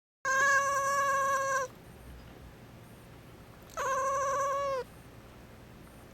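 Domestic cat giving two long, steady-pitched angry yowls, the second shorter and dropping in pitch at the end.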